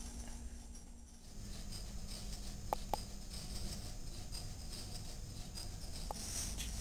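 Low room noise with a few faint clicks, two close together near the middle and one more near the end.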